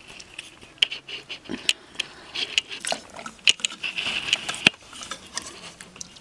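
Homemade slime being worked and squished, giving irregular small sticky clicks and crackles.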